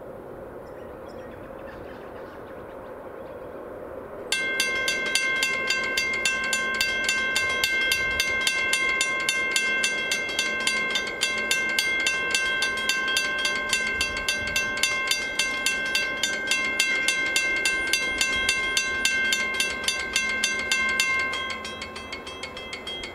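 Two Western Cullen Hayes mechanical level-crossing bells start ringing together about four seconds in, striking rapidly and evenly as the crossing activates. Near the end the louder bell, a rusty early-model bell that rings only until the gates are down, stops, leaving the newer bell ringing on, much weaker.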